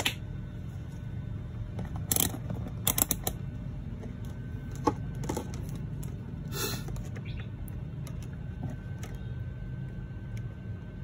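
A handful of short sharp clicks and light scrapes in the first seven seconds: multimeter probes and hands handling a router circuit board. A steady low rumble sits under them.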